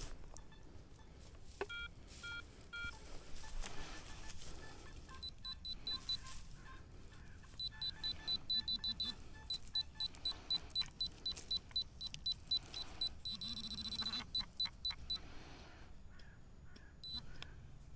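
Metal detector beeping: a few short electronic beeps, then a long run of quick high-pitched beeps, several a second, that stops about three seconds before the end.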